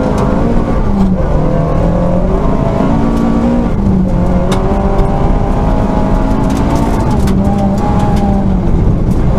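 Rally car engine heard from inside the cabin, pulling hard on a snowy stage. Its pitch climbs and drops several times through gear changes and lifts, with scattered sharp ticks and knocks over it.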